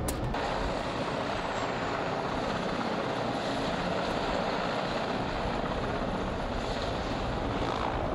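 Mil Mi-8-family transport helicopter's turbine engine running steadily on the ground, a continuous even rushing noise.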